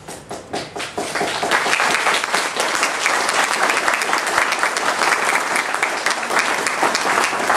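Audience applauding: a few scattered claps at first, swelling into full, steady applause about a second in.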